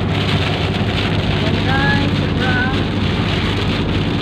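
Heavy rain pelting a moving car, heard from inside, over the steady low hum of the engine and tyres.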